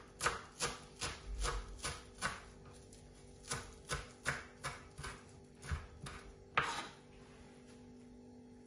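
Kitchen knife chopping fresh parsley on a wooden cutting board: a run of about fifteen sharp knocks, two to three a second, the last one the loudest, then the chopping stops.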